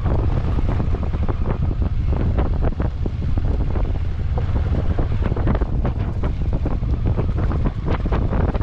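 Heavy wind buffeting on the microphone over a vehicle's low rumble while driving off-road. Many short knocks and rattles come from the rough ground, and they grow denser in the second half.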